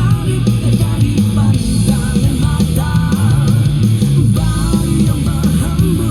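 Loud rock-style music with guitar, bass and drums, without clear singing.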